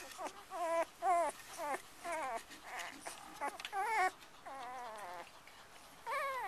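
Cocker spaniel puppies whimpering: a quick run of short, high-pitched squeaky whines, about two a second, then longer drawn-out whines in the last couple of seconds.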